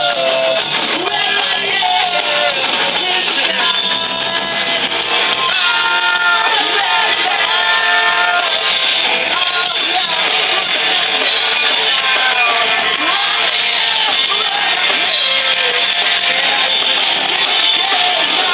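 Live rock band playing: electric guitars, drums and a singer's voice over the PA, recorded loud from within the crowd.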